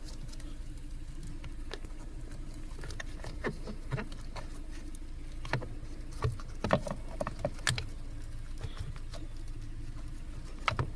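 Scattered plastic clicks and taps as an HVAC blend door actuator is handled and tried in its mounting under the dash, over a steady low hum.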